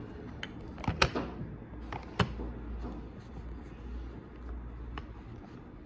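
A few sharp knocks over a low steady hum: a cluster about a second in, the loudest of them just after one second, and another single sharp knock a little after two seconds.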